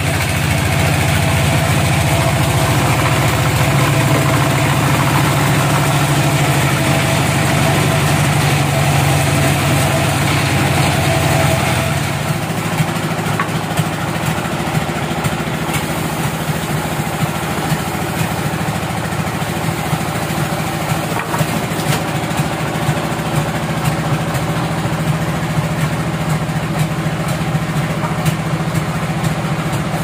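Sawmill band saw running steadily as it cuts through a large log, with a held tone over its hum. About twelve seconds in the sound changes to the saw machinery running without cutting, with scattered knocks and clatter as a log is handled onto the carriage.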